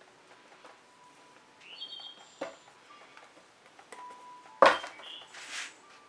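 Spatula on a stretched canvas: one sharp knock with a dull thud about two-thirds of the way in, then a short scraping swish as paint is swiped across the surface.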